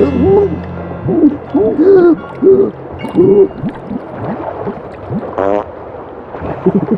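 A run of short hooting vocal calls, each one arching up and down in pitch, about six in a row. A brief buzzing sound comes near the end.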